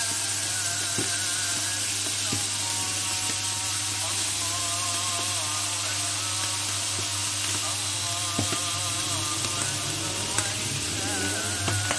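Liver pieces sizzling on a hot electric griddle: a steady frying hiss, with a low steady hum underneath.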